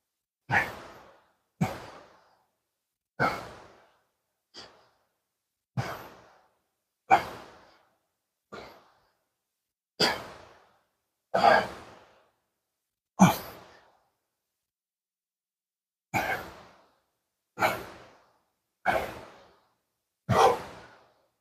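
A man's hard, short exhalations from exertion, about fourteen puffs spaced one to two seconds apart, with a pause of a couple of seconds near the middle: breathing through a set with heavy dumbbells and catching his breath after it.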